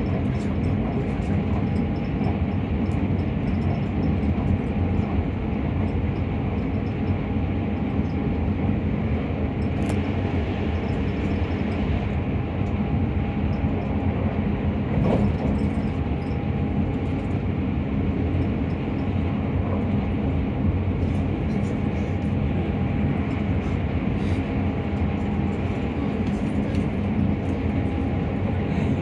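Keisei Skyliner express train running at speed, heard from inside the passenger cabin: a steady rumble of the ride with a faint constant tone running through it.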